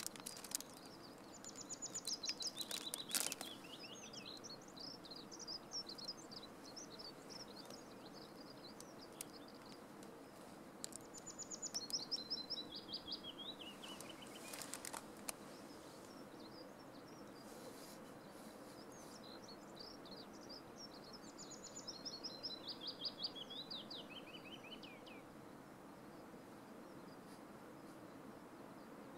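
A small songbird singing a quick trilled phrase that steps down in pitch, three times about ten seconds apart, over a steady faint outdoor hiss.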